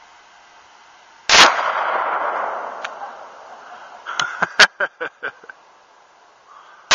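Two gunshots about five and a half seconds apart, each followed by a long echo dying away over a couple of seconds. Between them, a quick run of about six sharp clicks.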